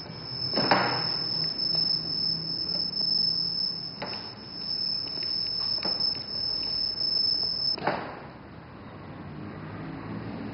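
A steady high-pitched whine on one unchanging pitch, held for about eight seconds and cutting off suddenly, with a short rushing noise just after it starts and another where it stops.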